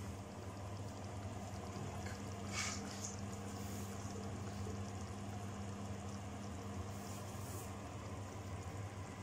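Bolognese sauce of minced meat and tinned tomatoes simmering in a stainless steel pot on a gas hob, over a steady low hum.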